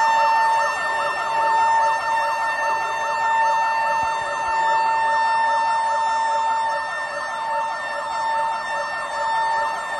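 Electronic alarm sirens sounding without a break: a fast, repeating rising-and-falling wail over a steady high tone.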